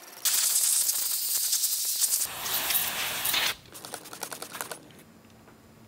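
A spray hisses loudly for about three seconds while engine parts are cleaned. It is followed by about a second of scratchy scrubbing on metal, then it goes quiet.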